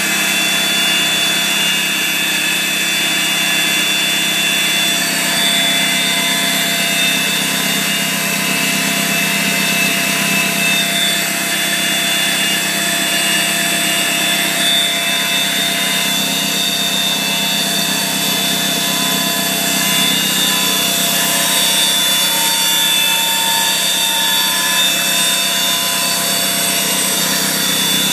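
BMW E46 318i's M43B19 four-cylinder engine running with a steady, high-pitched whine like a brush cutter coming from its secondary air pump: the sign of a failing secondary air pump.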